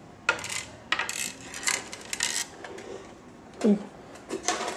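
Handling noise from an MD 500 scale helicopter body being turned over and moved about: a series of light clicks and knocks, then a short falling sound and a few more clicks near the end.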